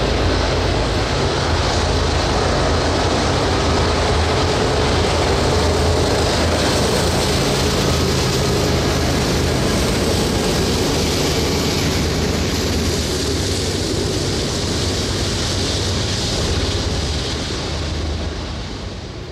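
BNSF double-stack freight train going by, its rear diesel locomotive passing with a steady low engine drone over the rumble of wheels on rail, then running on away from the listener. The sound stays loud and steady and falls away near the end.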